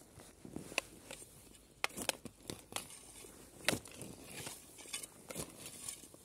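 Folding spade working forest ground: scattered sharp chops and scrapes of the blade in soil, with rustling and tearing of grass and leaf litter pulled up by hand.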